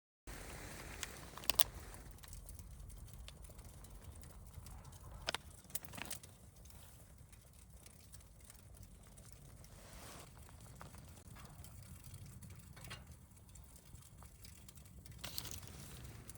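Wood fire burning in a secondary-combustion fire pit, a low rumble with a few sharp crackles and pops scattered through it.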